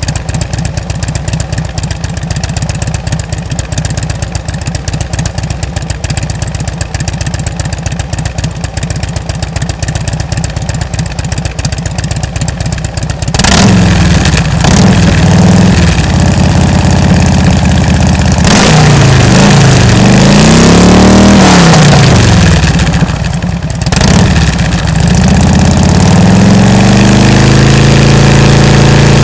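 Harley-Davidson Ultra Classic's Twin Cam 96 V-twin through Rush slip-on mufflers with 1.75-inch baffles, idling steadily. About halfway through it gets louder and is revved up and down several times, then settles to a steady run.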